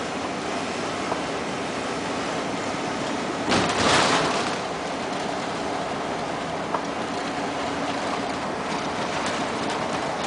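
Steady road and engine noise inside a moving motorhome's cab, with one louder whoosh about three and a half seconds in.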